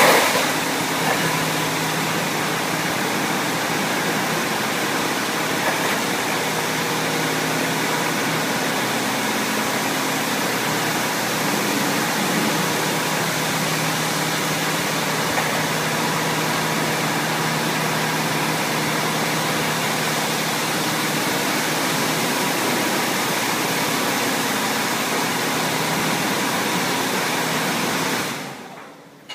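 LeisuWash touch-free car wash's overhead arm spraying high-pressure water over a foam-covered car, the rinse that clears the foam: a loud, steady hiss of spray with a low hum beneath. It fades out about a second before the end.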